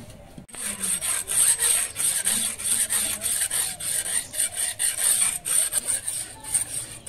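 A sharpening stone being rubbed back and forth along a large curved steel blade, a rapid run of gritty scraping strokes that starts about half a second in.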